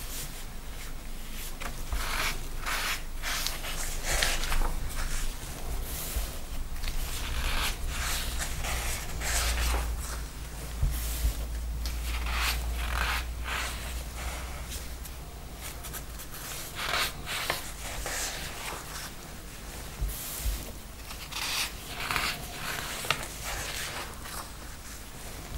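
Sheets of paper rustling and sliding under cotton-gloved hands as pages are lifted, shuffled and laid aside, in irregular brushing strokes with a couple of soft taps.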